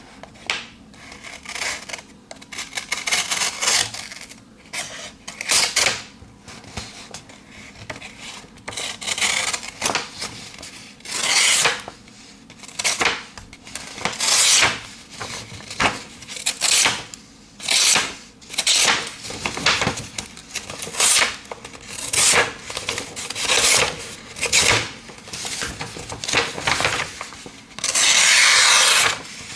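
A sharp pocket-knife blade slicing through paper again and again, a short swishing rasp roughly every second, with one longer, louder cut near the end.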